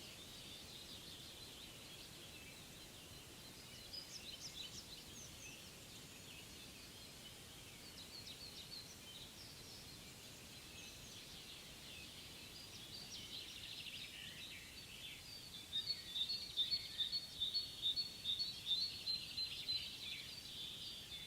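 Several songbirds singing and chirping in a forest over a faint steady background. About two-thirds of the way through, one bird's rapid run of repeated notes becomes the loudest sound for several seconds.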